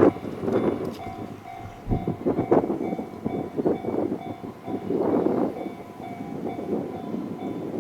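A JR Takasaki Line train passing over a level crossing, its wheels rumbling and clattering over the rails in uneven surges. The crossing's warning bell rings on under it in a steady repeating tone.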